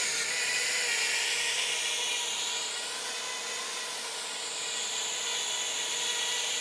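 A 6S FPV racing quadcopter hovering steadily for its first test flight: a continuous whine of brushless motors and propellers, its pitch drifting slightly up and back down.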